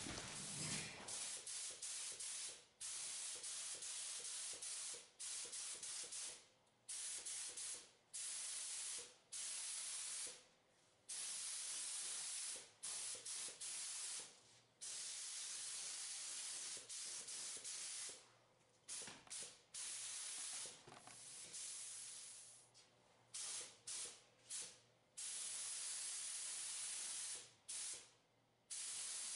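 Gravity-feed spray gun hissing in a series of short trigger bursts, each about a second to a few seconds long, as sealer is laid on in light passes. The fluid feed is turned down almost to nothing for a thin coat, so the sound is mostly the air hiss.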